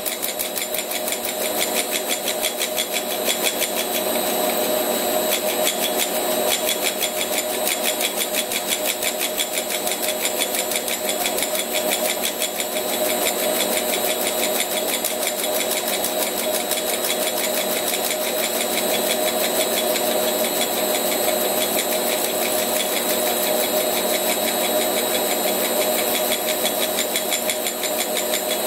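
Gear hobbing on a Rivett 608 lathe: the hob cuts the teeth of a small gear while a stepper motor turns the blank through a belt drive. The machine runs steadily, with a fast regular pulse and several steady whining tones.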